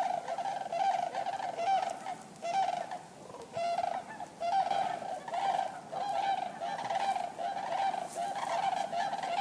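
Common cranes calling: short honking calls one after another, about one to two a second, easing off briefly a few seconds in.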